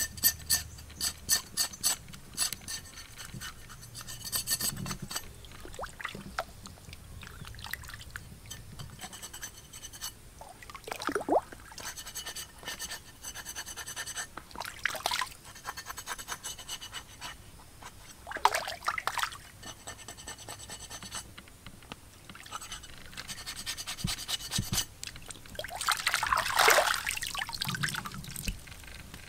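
Irregular rubbing and scraping sounds mixed with small splashes of liquid, with a quick run of clicks in the first few seconds and the loudest scrape near the end.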